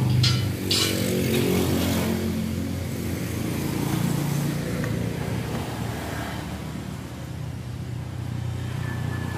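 A vehicle engine running steadily, with two sharp clacks near the start.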